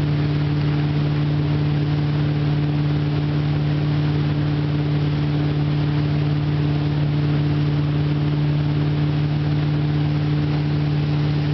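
Tow boat's engine running steadily at towing speed, a constant low drone over a steady rushing hiss.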